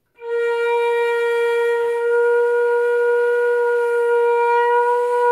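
Transverse flute sounding one long, steady held note, played with the head turned back and the lips left unchanged, so the air jet is aimed at a different spot on the embouchure hole.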